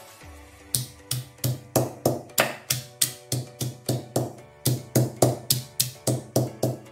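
Stone pestle pounding a green stalk against a stone mortar: a quick, regular run of knocks with a low thud, about four a second, starting about a second in and stopping just before the end, over background music.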